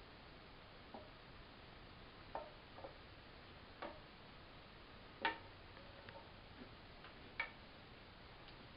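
A butter knife tapping and scraping in a metal skillet while butter is spread over the pan: a few faint, irregular clicks, the sharpest a little over five seconds in.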